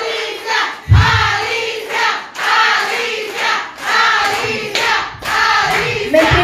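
A crowd of women singing together and clapping along, with a loud low thump about a second in.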